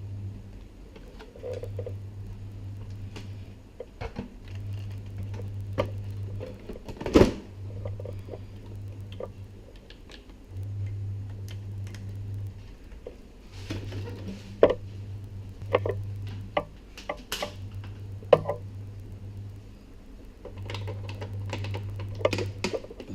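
Clicks and small knocks of hard plastic and metal parts being handled, with a low hum that switches on and off in stretches of about two seconds.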